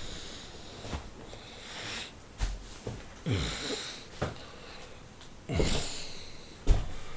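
A man breathing: several separate, audible breaths with quieter stretches between them.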